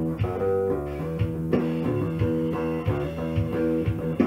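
1974 Rickenbacker 4001 electric bass played through an Ampeg BA110 amplifier: a steady run of plucked notes, about three a second.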